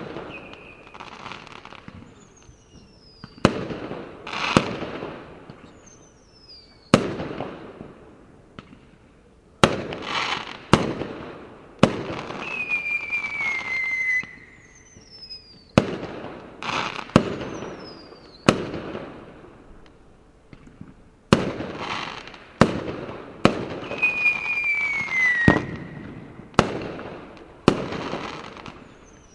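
Fireworks going off: a dozen or so sharp bangs, one every one to three seconds, each trailing off in a crackle. Several whistles glide downward in pitch between the bangs, two of them louder and longer, near the middle and about three quarters of the way through.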